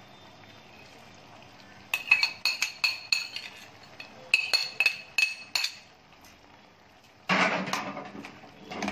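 Metal spoon clinking against a metal cooking pan: two runs of sharp, ringing taps a couple of seconds apart as sliced green chilies are added to the liver, then a longer noisy stretch of stirring in the pan near the end.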